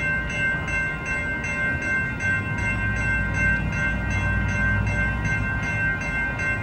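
Railroad crossing warning bell ringing in a fast, even rhythm of about three to four strikes a second, the signal that a train is approaching and the gates are down. A low rumble sits underneath and grows stronger about two seconds in.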